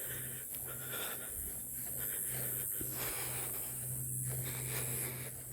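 A person breathing heavily while walking, with a steady low hum and a high hiss behind it.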